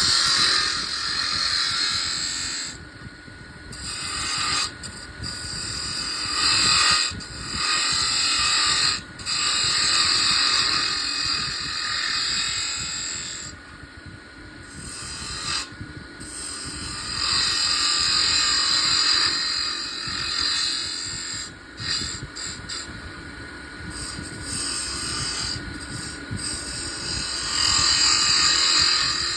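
Wood lathe turning a wooden coffee-machine handle, with the tool's cutting or rubbing noise on the spinning wood swelling and falling away in short breaks every few seconds.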